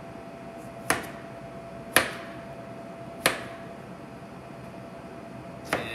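Chef's knife chopping through radishes onto a plastic cutting board: four separate sharp knocks, unevenly spaced, over a faint steady hum.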